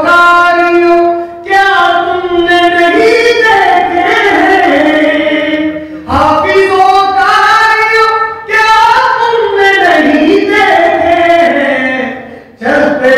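A man singing an Urdu devotional poem solo, in long melodic held phrases, with short pauses for breath every few seconds.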